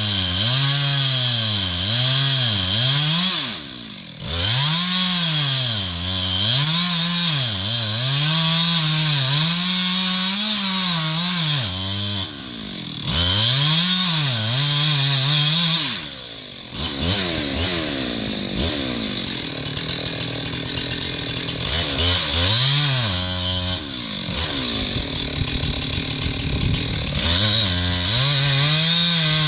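Two-stroke chainsaw cutting into a rotten tree trunk, its engine pitch rising and falling again and again about once a second as the chain loads up and frees in the cut. For several seconds past the middle it runs lower and rougher before the rising and falling comes back near the end.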